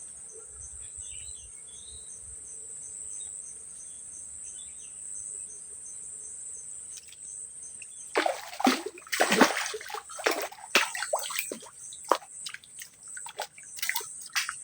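Insects trill steadily with a few chirps. About eight seconds in, loud irregular splashing in water starts and carries on in short bursts.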